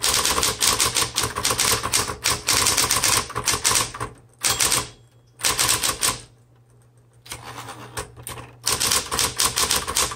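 Fast typing on a 1960s Smith Corona Electra 110 electric typewriter: rapid runs of key and typebar strikes broken by short pauses, over the steady hum of its running motor.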